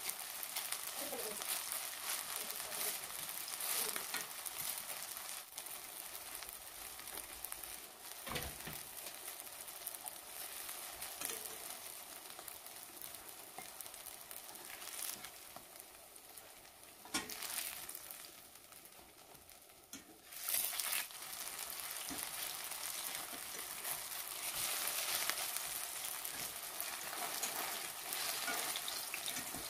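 Cauliflower patties sizzling steadily as they shallow-fry in oil in a stainless steel pan. A few sharp clicks come from the metal spatula and spoon against the pan.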